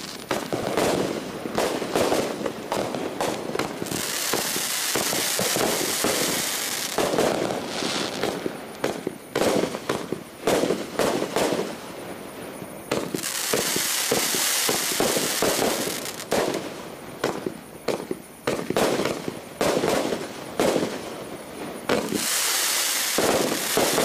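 A 500-gram, 24-shot consumer firework cake firing: a fast string of launch thumps and aerial bursts, with three stretches of dense hissing from the bursting effects.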